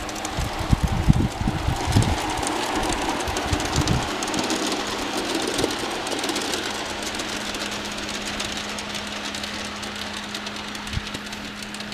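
A G scale model train, two NW2 diesel switchers pulling boxcars, rolling along garden railway track: a steady hum from the locomotives with a dense run of fine clicking from the wheels on the rails. Wind buffets the microphone in low gusts during the first few seconds.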